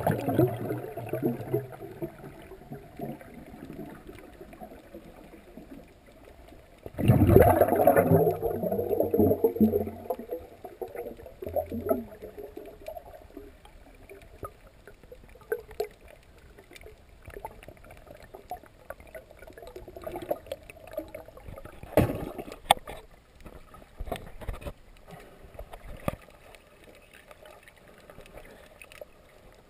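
Muffled underwater sound heard through an action camera's waterproof housing: water sloshing and gurgling around it. A louder rush of water comes about seven seconds in, and a few sharp clicks come later.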